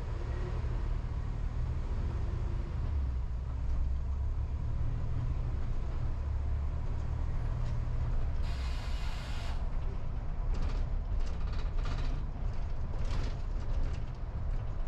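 Car driving along a city street: a steady low rumble of engine and road noise. Just past halfway comes a hiss lasting about a second, followed by a run of short, sharp clicks and knocks.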